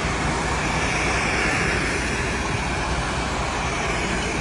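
Steady rushing noise with a low rumble inside a submersible's hull just after it goes underwater.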